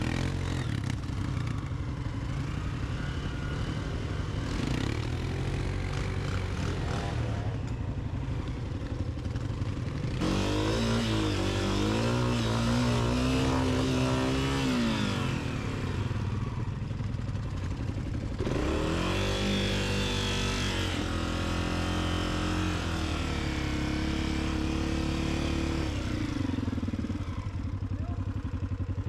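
Dirt bike engine running throughout, with two longer stretches, about a third of the way in and again past the middle, where it revs up and down.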